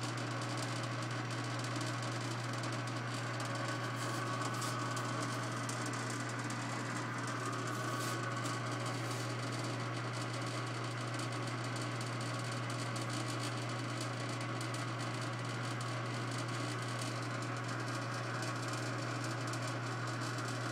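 Clausing 6315 metal lathe running under power with the power cross feed engaged: a steady hum with light rapid clicking from the running gears.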